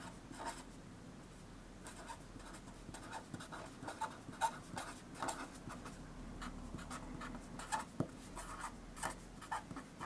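Pen writing by hand on paper: a run of short, faint scratchy strokes as words and figures are written out.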